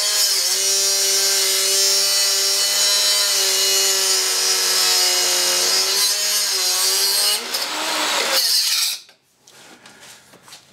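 Angle grinder with a thin cut-off disc cutting through rusty steel: a loud, steady motor whine over a harsh grinding hiss, the pitch sagging now and then as the disc bites. It cuts out about nine seconds in.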